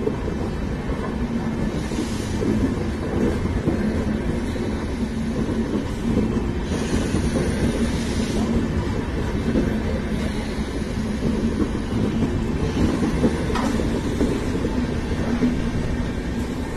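Indian Railways passenger coaches rolling past at close range as the train pulls out of the station: a steady rumble of wheels on the rails, with a few brief surges of hiss.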